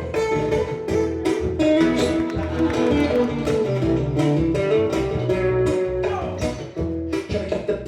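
Live guitar playing an instrumental passage of strummed and picked chords between sung verses of a song.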